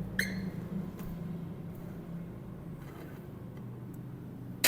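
Hand tool work on a motorcycle's air cleaner cover: a light metallic click just after the start over a steady low hum, and a sharp metal clatter at the very end.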